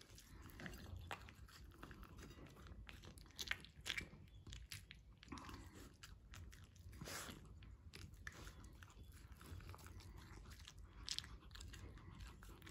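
Small dog eating soft pancake-treat pieces from a ceramic plate: faint, irregular chewing and crunching, with small clicks as its mouth works against the dish.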